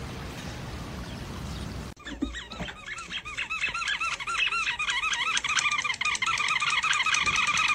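Splashing fountain water for the first two seconds. Then a dog's squeaky toy being squeaked again and again as the dog chews it: a quick, unbroken run of high squeaks, each rising and falling in pitch, coming faster and louder toward the end.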